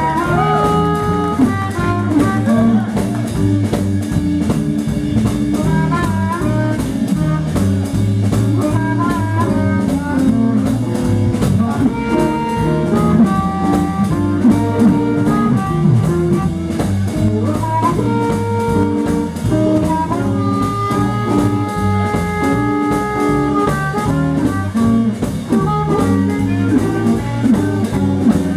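Live blues band: an amplified harmonica, cupped to a hand-held microphone, plays held and bending lead notes over electric guitar and bass with drums.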